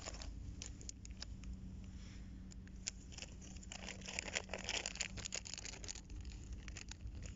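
Handling of a plastic lure package: crinkling and rustling with many small clicks, busiest around the middle, as the next ice-fishing balancer is taken out.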